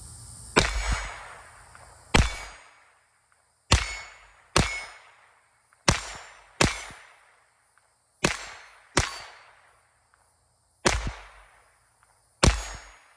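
Smith & Wesson M&P 22 Compact .22 LR rimfire pistol firing eleven shots at a steady pace, about one every second, each crack trailing off in a short echo.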